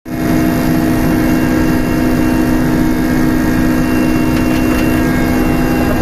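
Helicopter cabin noise: engine and rotor running steadily, heard from inside the aircraft, loud and unchanging with a constant low two-note hum.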